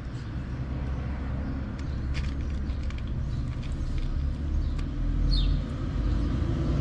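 Steady low rumble of road traffic, with a few faint clicks and one short, high falling chirp about five seconds in.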